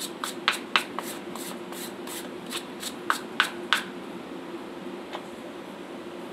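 Quick, sharp scraping strokes of a hand tool against the underside of a draft horse's hoof, about a dozen over the first four seconds, then one more faint stroke, over a steady low hum.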